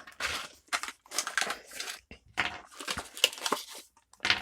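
Packaging crinkling and crackling in irregular bursts as it is worked open by hand.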